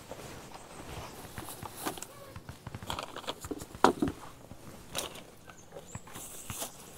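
Plastic bags rustling and a plastic bottle being handled, in irregular soft rustles and clicks, the sharpest about four seconds in.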